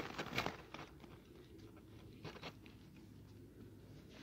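Faint crunching of boots shifting on crusted snow: a few crunches in the first second, then two more a little past two seconds in.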